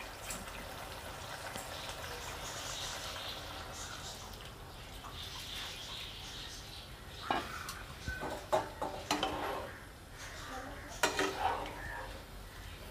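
Fish curry cooking in a non-stick frying pan with a faint steady sizzle. From about seven seconds in, a metal spatula stirs it, with irregular scrapes and clicks against the pan.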